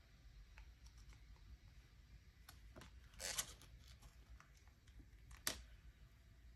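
Mostly quiet handling of clear stamps and acrylic stamp blocks. A short rustle about three seconds in, like a clear stamp being peeled off its plastic sheet, and one sharp click about two seconds later.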